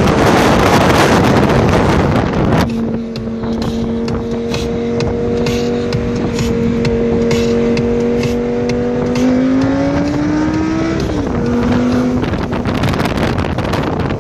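Lamborghini Gallardo Spyder's V10 with sport exhaust, heard from the open cockpit: a loud rush of wind on the microphone for the first two or three seconds, then the engine cruising with a steady drone. About nine seconds in it rises in pitch as the car accelerates, then drops back about eleven seconds in.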